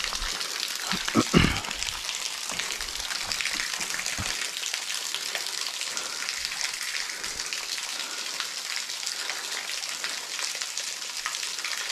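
Thin trickle of water running out of a hole in a rock face and splashing onto wet stones below: a steady hiss, with a few low thumps about a second in.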